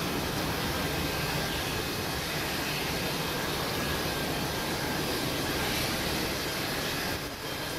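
Jet engines of an ANA Boeing 777 running as the airliner rolls along the runway: a steady rush of noise with a faint high whine, dipping briefly near the end.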